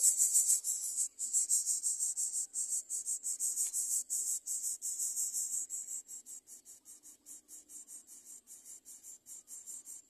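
Greater coucal nestlings begging: a high-pitched rasping call repeated rapidly, about five times a second, loud for the first six seconds and then softer.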